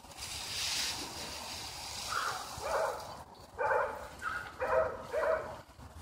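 Dry leaves rustling under a rake near the start, then six short, pitched vocal calls in quick succession, the loudest sounds here.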